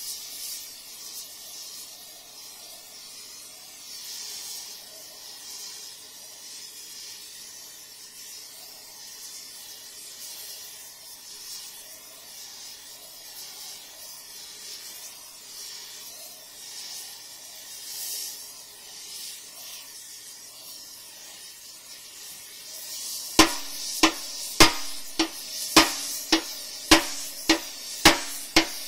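A heating torch hisses steadily as it plays on a spot of the steel excavator stick. Near the end, hammer blows start on the heated steel, about two a second and much louder than the hiss: this is heat-straightening the warped stick.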